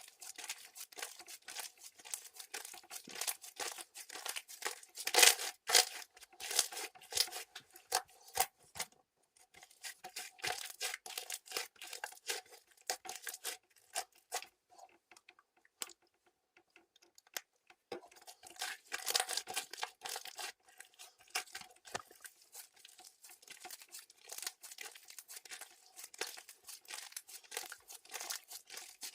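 Clear crystal slime being squished and stretched by hand: dense sticky crackling and clicking, quieter for a few seconds in the middle.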